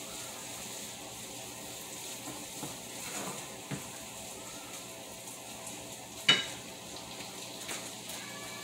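Small fish sizzling steadily as they fry in oil in a skillet, stirred with a wooden spoon. A sharp clink with a short ring about six seconds in stands out as the loudest sound.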